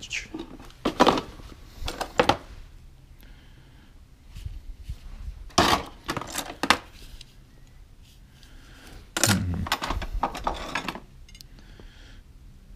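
Metal hand tools (pliers, locking pliers, wrenches) clinking and clattering as they are picked up and dropped back among other tools in plastic bins. The clatter comes in several rounds, the longest near the end, with quiet between.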